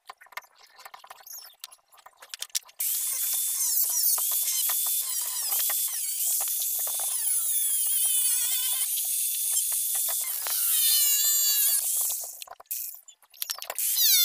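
Electric angle grinder with a cutting disc cutting into a flat steel piece: a loud, high screech with a wavering whine as the disc bites. It starts suddenly about three seconds in after a few light handling clicks, breaks off briefly near the end, and starts again.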